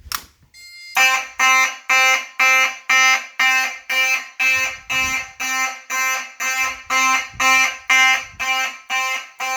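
Fire alarm horn sounding in evenly pulsed blasts, about two a second, starting about a second in. This is the system in alarm after a device was set off with its test button.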